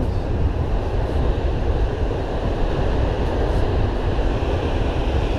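Wind buffeting the microphone in a steady low rumble over the even rush of surf on the beach.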